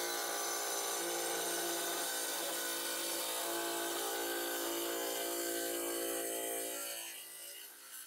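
A small tile saw with a diamond blade runs with a steady, many-toned motor whine as a sugar geode is pressed against the blade. The whine softens about seven seconds in.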